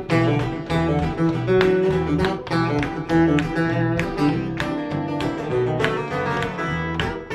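Instrumental introduction of a folk-style song: acoustic guitar playing a steady rhythm over sustained bowed low notes, probably cello or double bass.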